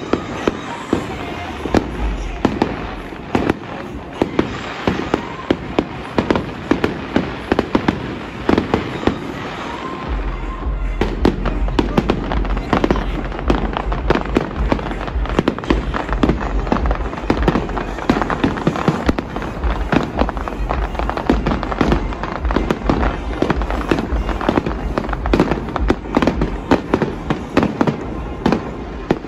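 Fireworks display: a dense, continuous run of bangs and crackling pops from aerial shells, with a low rumble underneath from about ten seconds in.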